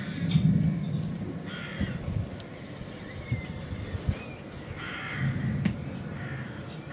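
A flock of birds giving harsh, repeated calls, in groups about every second or two, as they fly off, with a low rumble underneath.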